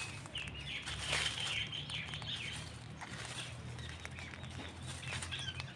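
Birds chirping: a dense flurry of short, high calls in the first couple of seconds, thinning to scattered chirps afterwards.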